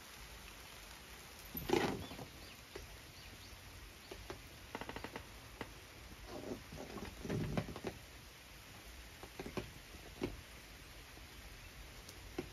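Scattered knocks and clicks from something being handled, the loudest about two seconds in, with a quick run of clicks around five seconds and some rustling a little later.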